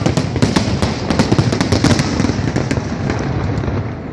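Fireworks display going off in a rapid barrage of many overlapping bangs and crackles over a continuous rumble, thinning out near the end.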